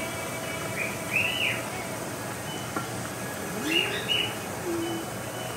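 Thin plantain slices sizzling steadily as they deep-fry in hot oil in a skillet, stirred with a slotted spatula. A few short high chirps come about a second in and again near four seconds.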